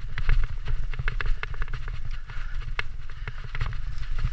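Mountain bike clattering over a rough, leaf-strewn dirt singletrack: a rapid, irregular run of sharp clicks and knocks as the bike jolts over bumps, over a steady low rumble.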